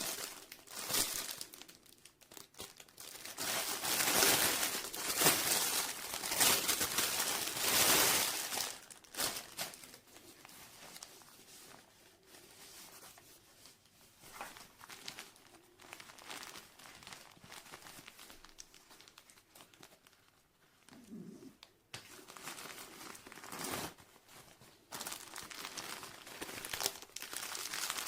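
Plastic packaging crinkling and rustling as it is handled, in uneven bursts. It is loudest between about four and nine seconds in, quieter through the middle, and picks up again near the end.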